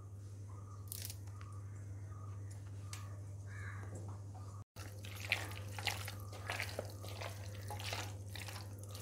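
A hand mixing chicken pieces in a thick masala paste in a steel bowl, giving short, irregular wet squelches and slaps from about halfway through. Under it is a steady low hum.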